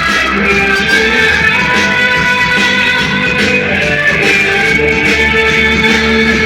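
Loud dance music played over a sound system, with guitar and a steady low beat.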